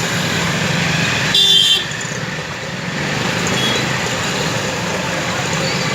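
Steady road traffic noise, with a vehicle horn giving one short toot about a second and a half in.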